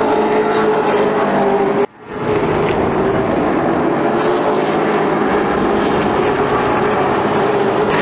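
Late model stock car V8 engines running at speed as race cars pass on the track: a loud, steady engine drone. About two seconds in, the sound cuts out almost completely and fades back in.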